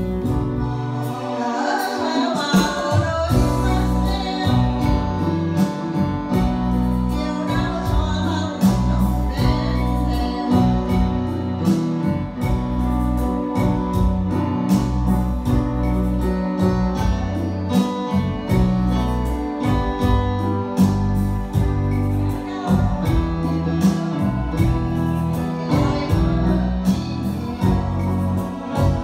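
Live amplified music: a woman singing into a microphone over electronic keyboard accompaniment with a steady beat.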